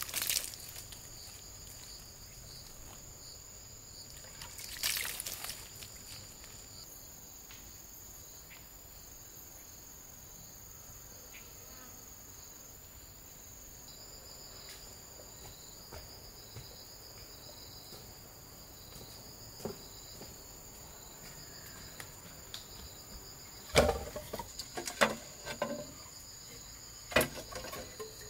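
Insects chirring in a steady high-pitched drone, with a second, pulsing insect call joining about halfway. A few scattered knocks, and a cluster of sharp clatters near the end that are the loudest sounds here.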